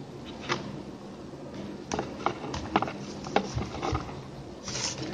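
A plastic packing strap is being handled and threaded through a woven plastic-wire basket. The plastic gives off irregular clicks and crackles, with a short rustling slide near the end.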